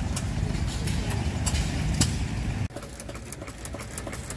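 Antique stationary gas engines running, with a sharp pop or click every so often. A little past halfway the sound cuts off suddenly and gives way to a quieter run with quicker, closer-spaced clicks.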